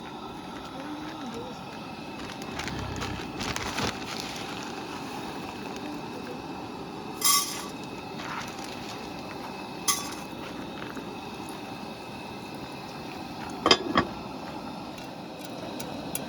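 Popcorn heating in a Dutch oven over a campfire: a steady low hiss with a few scattered sharp pops and clinks, the loudest a close pair near the end.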